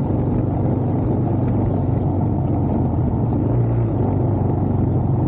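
Motorcycle engine running steadily while riding, a constant low drone with no change in revs.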